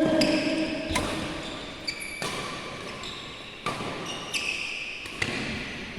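Badminton rally in a sports hall: sharp racket hits on a feather shuttlecock, about five in all, each echoing in the hall, with short high squeaks between them.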